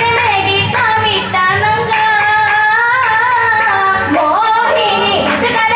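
Group of girls singing a Mappila oppana song together in one melody line, amplified through a PA system.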